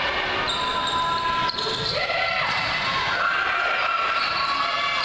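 Indoor volleyball rally in a large gymnasium. Sneakers squeak on the hardwood court, a ball is struck sharply about a second and a half in, and players and spectators call out.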